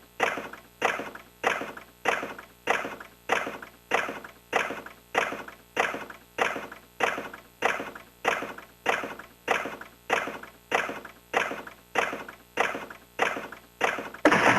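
Retro Sankyo Fever Big Chime pachinko machine in play: a sharp mechanical clack with a short metallic ring, repeating evenly about twice a second.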